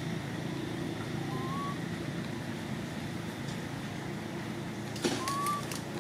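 Steady low background rumble, with two short rising chirps, one about a second and a half in and one near the end, and a sharp click just before the second chirp.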